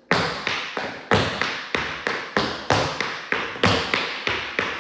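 Shoes striking a hard floor in a dance step, about fifteen sharp, even strikes at roughly three a second, each ringing briefly.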